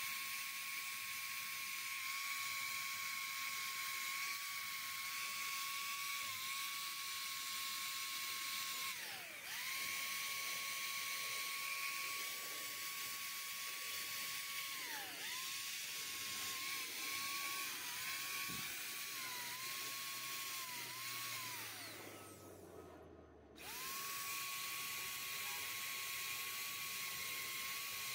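Corded power tool spinning a steel wire brush at high speed against a rusted iron railing to strip rust: a steady high whine with a scraping hiss. The whine sags briefly several times as the brush bears on the metal, winds down to a stop about 22 seconds in, and starts up again a second or so later.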